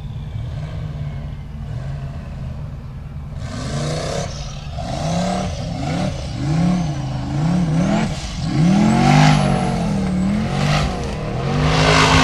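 Off-road racing buggy's engine under full throttle on a steep dirt climb. A low steady rumble for the first few seconds, then from about three and a half seconds in it revs up and down again and again, the pitch rising and falling as the wheels spin for grip, loudest near the end.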